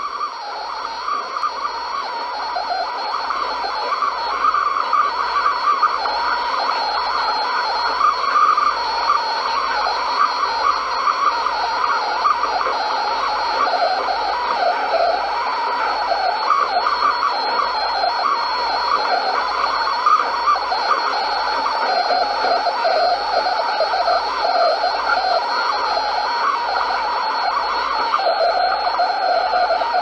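AM radio static being tuned: a steady hiss with wavering whistles that wobble up and down in pitch, growing louder over the first few seconds.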